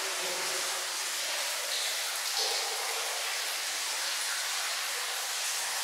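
Steady, even hiss of water running in a hammam's stone bath chamber.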